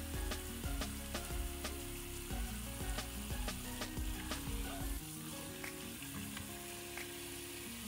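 Tap water running steadily onto baby bok choy in a plastic colander, splashing as hands rub the leaves, over background music with a beat.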